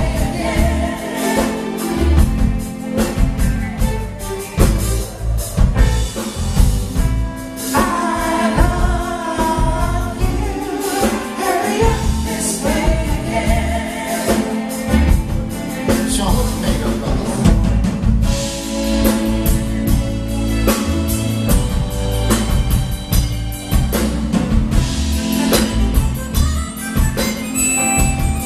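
Live band playing a song with singing, driven by a drum kit and electric bass.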